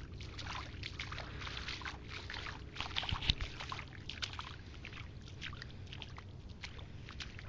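Footsteps sloshing through shallow water and wet mud, with irregular splashes; the loudest come a little after three seconds in.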